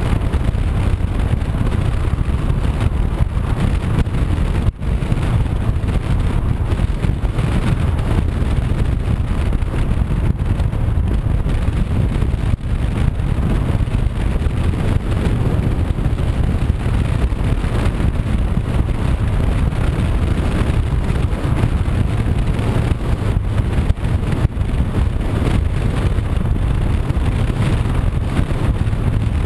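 Wind buffeting the microphone over the steady running of a Honda CB500X motorcycle's parallel-twin engine and road noise while riding at a steady speed, heavy in low rumble.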